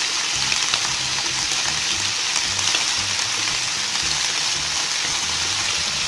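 Pieces of rice-field eel frying in a little hot oil in a pan: a steady sizzle with fine crackles and pops throughout. The eel is being fried only briefly over low heat to firm it before braising.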